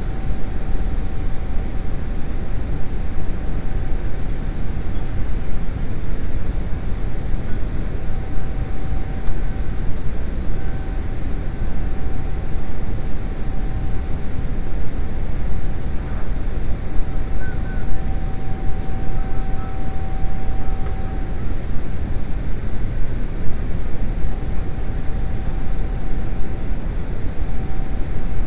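Steady low rumble of background machinery with a constant faint whine running through it.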